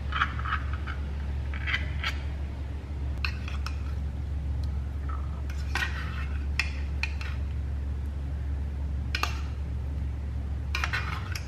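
Metal spoon scraping and clinking against an open tuna can and a ceramic bowl as the tuna is spooned out, in scattered short clinks and scrapes over a steady low hum.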